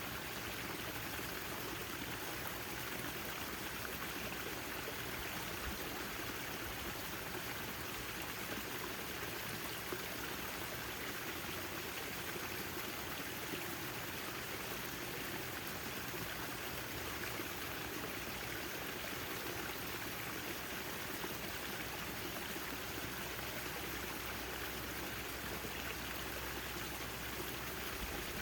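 Backyard fountain: water splashing and trickling in a steady, unbroken rush.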